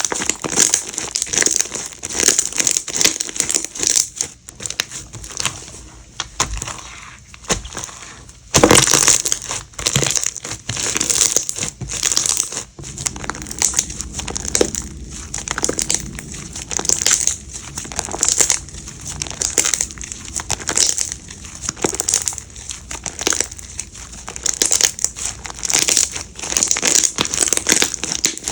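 Slime being played with by hand: a dense, irregular stream of crinkly, crackling clicks and pops, with a louder burst about a third of the way in.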